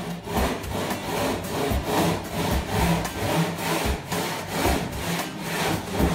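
Handsaw cutting through a length of coving in steady, repeated back-and-forth strokes.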